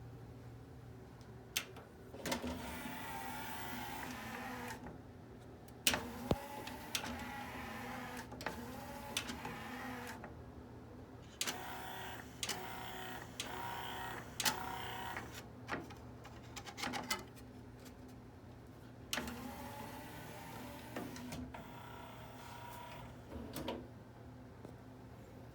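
Yamaha CDC-625 CD changer's motor-driven disc mechanism whirring in about five separate runs of two to four seconds each, with clicks as each movement starts and stops.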